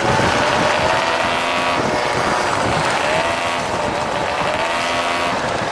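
Moped engines running on a group ride, the engine note rising and falling over and over, over a steady noisy rush.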